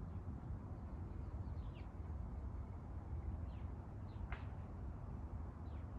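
A few short bird chirps, each falling in pitch, the clearest about four seconds in, over a steady low background rumble.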